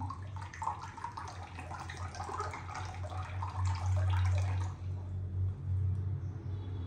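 Tap water running and splashing into a bathroom sink as hands and a cloth are rinsed under it; the splashing stops about five seconds in. A steady low hum runs underneath.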